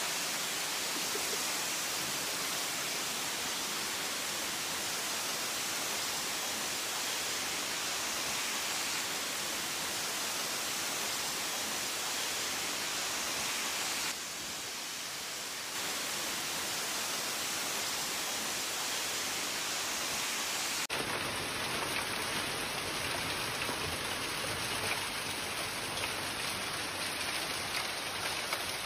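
Steady hiss of heavy rain and hail pouring down, with the sound shifting in character at a cut about 21 seconds in.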